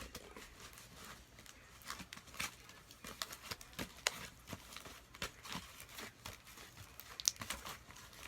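Sticky slime being pulled and scraped out of a mixing bowl, making irregular wet clicks and snaps.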